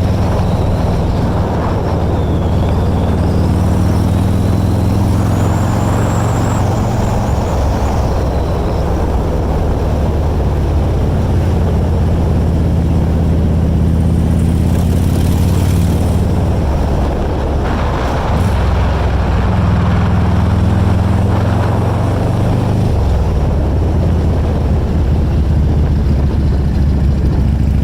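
Harley-Davidson motorcycle's V-twin engine running under way, a steady low drone whose pitch shifts a few times as the throttle and road speed change.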